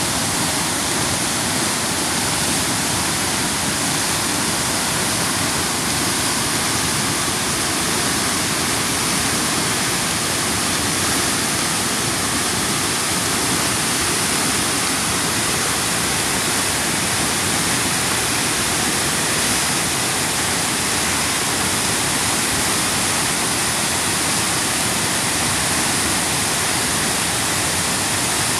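A swollen, muddy river in spate rushing over rocky rapids: loud, steady churning of white water, with no let-up.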